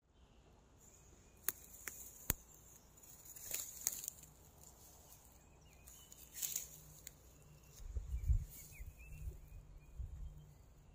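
Rustling and crackling in grass and weeds, with three sharp clicks close together between about one and a half and two and a half seconds in, and low dull thumps around eight seconds.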